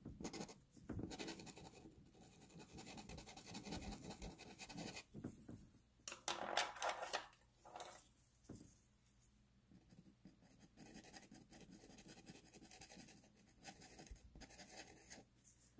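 Pastel pencil scratching across textured pastel paper in short, uneven strokes, faint, with a louder run of strokes about six seconds in.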